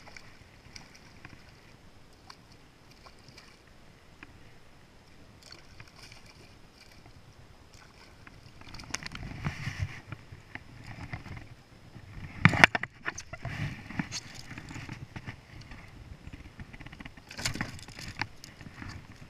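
Water splashing and sloshing beside a plastic pedal kayak as a hooked redfish is fought and brought aboard, quiet at first and then busier from about halfway through. There are knocks and handling noises against the hull, the loudest a single sharp knock.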